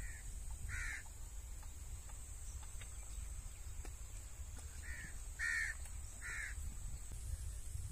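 Crow cawing: one or two caws near the start, then a run of three caws about five seconds in, over a steady low rumble.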